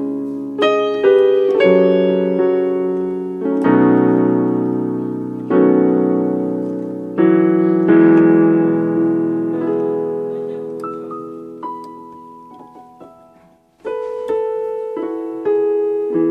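Yamaha portable keyboard played in a piano voice: a slow run of chords, each struck and left to ring and fade, then a few single higher notes. The sound dies almost away near the end before the chords start again.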